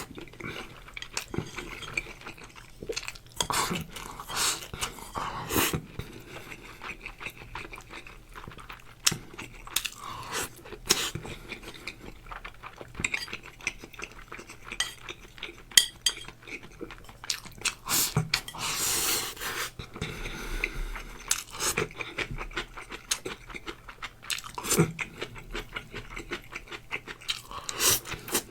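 Eating sounds: a spoon or chopsticks clicking and scraping against a bowl, with chewing in between, as braised pork belly with rice is eaten.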